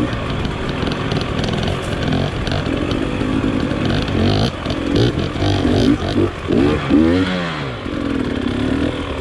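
Dirt bike engine running under throttle, revving up and down in quick surges about four to eight seconds in.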